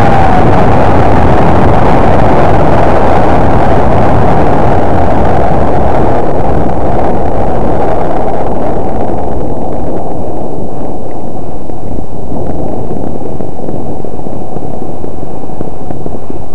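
Wind rushing and buffeting over the microphone of a body-worn camera on a snowboarder riding fast downhill, a loud, dense rumble; the hiss in it eases after about nine seconds while the low rumble goes on.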